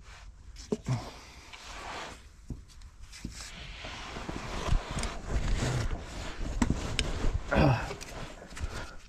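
Hands-on work under a backhoe's transmission: scattered knocks and clinks of parts and tools against metal, with shuffling. A grunt comes near the end.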